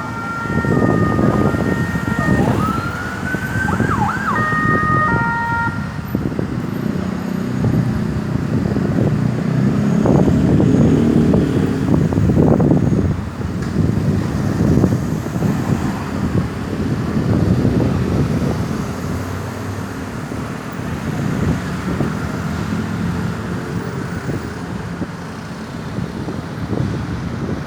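Electronic ambulance siren sounding briefly: a string of stepped tones at several pitches and a quick rising whoop in the first few seconds, after which it falls silent and a steady rumble of road traffic carries on.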